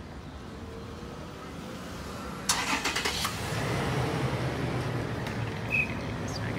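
Street traffic: car engines running close by, the low rumble growing louder about three seconds in. A sharp hiss lasting under a second cuts in about two and a half seconds in.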